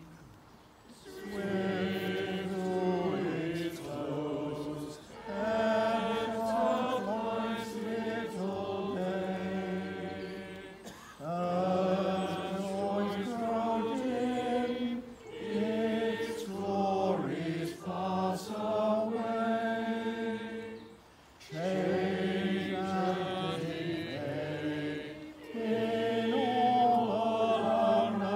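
Church choir singing a chant-like piece in phrases of four to six seconds, each separated by a brief breath pause.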